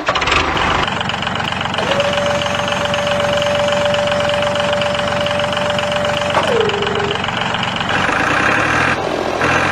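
Vehicle engine running steadily, with a steady whine that drops in pitch about six and a half seconds in and then stops.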